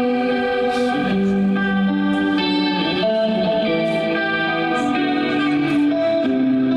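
Electric guitar playing a slow melody of sustained, ringing notes with a chorus-like effect over held bass notes, the notes changing about once a second.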